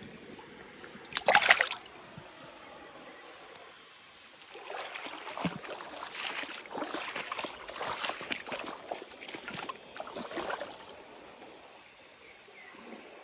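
Shallow river water splashing as a rainbow trout is released by hand. There is a sharp splash about a second in, then a run of irregular splashes and sloshing from about four to eleven seconds, over a faint steady stream hiss.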